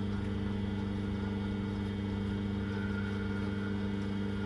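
Car lift's electric hydraulic pump motor running with a steady, even hum as the lift raises the car.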